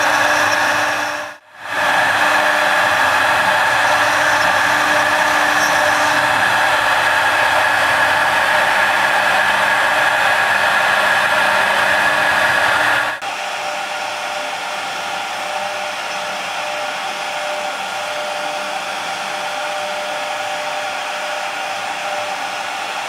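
CNC router spindle running at speed while carving wood: a steady, loud whirring whine. The sound cuts out for an instant about a second and a half in, then about 13 seconds in drops abruptly to a quieter, thinner whine with a steady tone.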